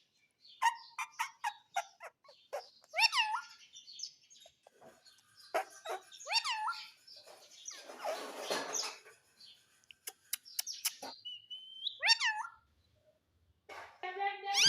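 Pet parrot calling: a string of short, high chirps that swoop up and down in pitch, with sharp clicks between them and one harsh, scratchy squawk about halfway through.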